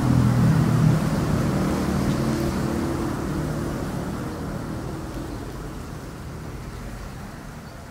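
Diesel locomotive hauling a passenger train away, its engine running with a steady low hum over wheel and rail noise, fading steadily as the train recedes.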